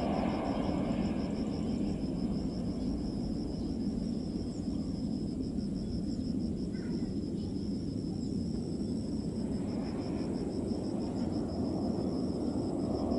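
Distant Boeing 737 jet engines making a steady low rumble as the airliner comes in to land, with insects chirring in a fast, even, high-pitched pulse over it.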